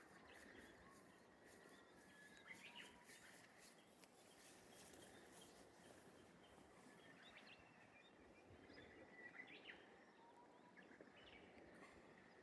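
Faint rural ambience: a few short, scattered bird chirps over a soft, steady hiss, with a thin steady high tone underneath.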